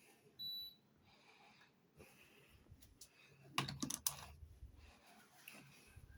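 Carrier air conditioner giving a single short, high electronic beep, the chime it makes on taking a command, about half a second in. A quick cluster of clicks and knocks follows about three and a half seconds in.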